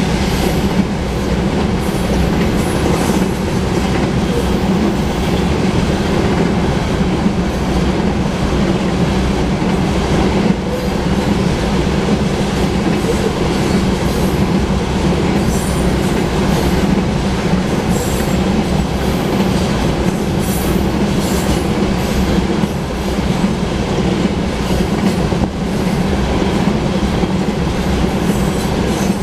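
Loaded oil tank cars of a freight train rolling past at a steady pace, a continuous rumble and clatter of steel wheels on rail. Brief high squeals from the wheels come and go now and then.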